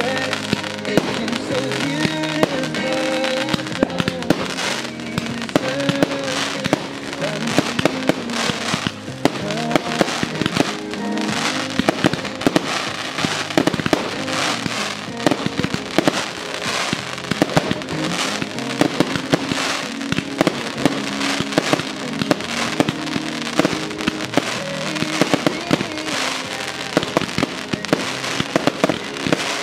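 Aerial fireworks going off one after another, many sharp bangs of shells bursting, with music playing throughout.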